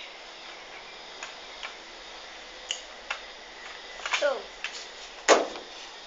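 Hard plastic clicks and clacks from an X-Shot toy dart shotgun being handled, scattered a few at a time, with the loudest clack about five seconds in.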